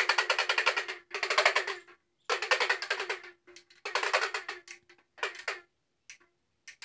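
A baby's handheld toy rattle shaken in short bursts of rapid clattering strokes, several bursts with brief pauses between them.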